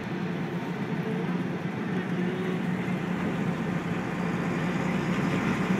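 Tow truck on the move: steady engine drone mixed with road noise.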